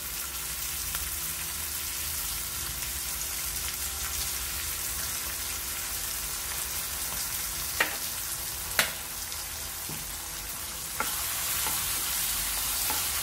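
Onions and green capsicum sizzling in oil in a non-stick pan as a wooden spatula stirs tomato sauce through them. Two sharp clicks come a little after halfway, and the sizzle gets louder near the end.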